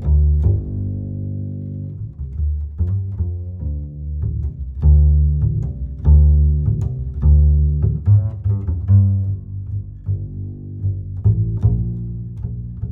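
Background music: low bowed and plucked strings, cello and double bass, playing a rhythmic line of repeated notes.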